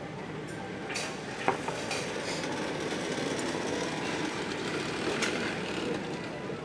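Steady restaurant background hum with a few light clicks of tableware; one sharp clink of a dish about a second and a half in.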